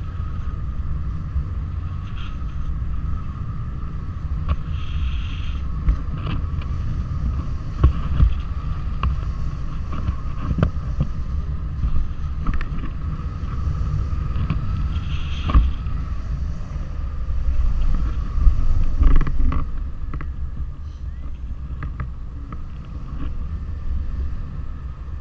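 Wind rushing over the camera's microphone in flight: a steady low rumble with scattered knocks and crackles. A faint steady high tone underneath fades out about twenty seconds in.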